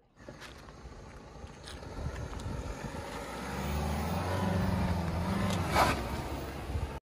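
A hatchback car's engine running and growing steadily louder as the car drives close by, with a brief sharp noise near the end. The sound cuts off suddenly.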